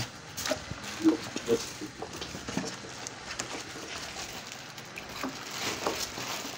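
Styrofoam packing insert on a new tubular battery squeaking and rubbing as it is handled, with short squeaks and light knocks, most of them about a second in.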